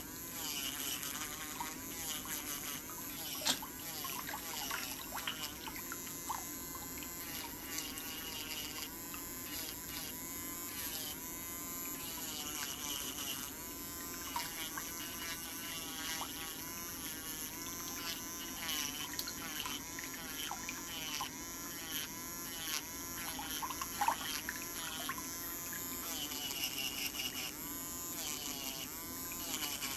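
Electric nail file (e-file) with a cone-shaped bit filing a big toenail: a steady high motor whine that wavers in pitch.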